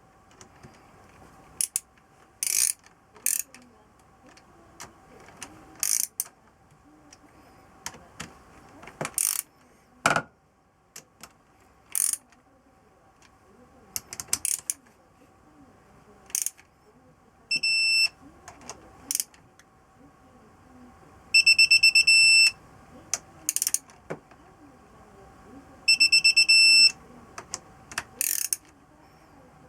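Scattered sharp metallic clicks of hand tools working on an engine, with four short bursts of fast, high electronic beeping, each about a second long, about two-thirds of the way in and then at intervals near the end.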